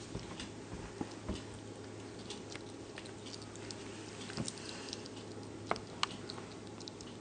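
Slow loris chewing a piece of fruit: a run of small, irregular clicks and smacks, with two sharper clicks about six seconds in, over a steady low hum.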